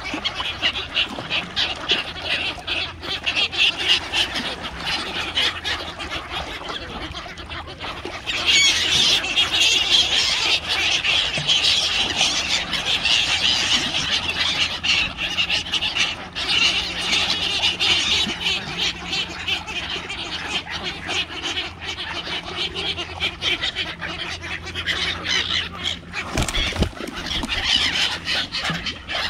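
A crowded mixed flock of waterbirds (coots, mallards, black-headed gulls and Canada geese) calling all at once: a constant jumble of squawks, quacks and honks, growing louder about eight seconds in and easing off after the middle.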